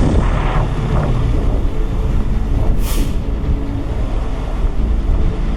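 Heavy vehicle engine running steadily with a low rumble, and a short hiss of air about three seconds in.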